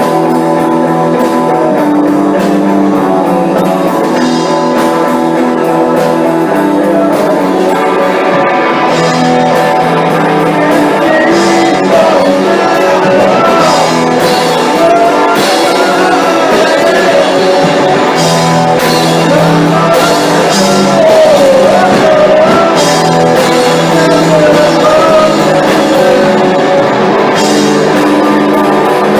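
A rock band playing a song on guitar, keyboard and drums, with sustained chords. From about ten seconds in, a wavering sung vocal line runs over the band.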